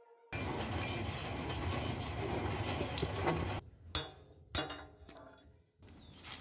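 A dense, rough noise with scattered clicks for about three seconds, which cuts off suddenly. Then come two sharp metallic strikes with a ringing tail, about half a second apart, and a fainter third: a sledgehammer hitting a steel bar set in an excavator bucket's pin bore.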